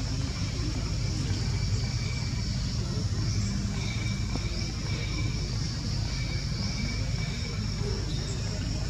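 Steady low outdoor rumble, with a constant faint high-pitched hum and a thin high tone that comes and goes every second or two.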